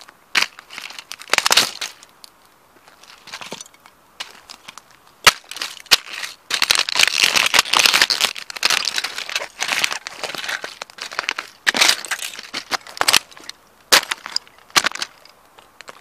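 Rigger work boots stomping on a collectible Mercedes model car on gravel: its plastic body and parts crack, snap and crunch apart. A dense run of crackling fills the middle, with single sharp cracks before and after it.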